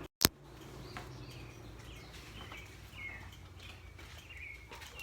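A sharp click just after the start, then birds chirping faintly, in short calls scattered through, over low background noise.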